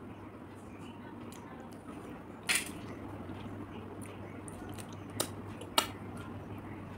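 Close-up eating sounds of fried river snails being picked apart and eaten: three short, sharp clicks or smacks, the loudest about two and a half seconds in and two smaller ones a little past five seconds.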